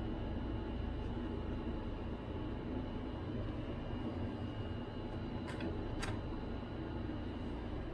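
Steady low hum and hiss of background noise, with two light clicks a little over halfway, about half a second apart.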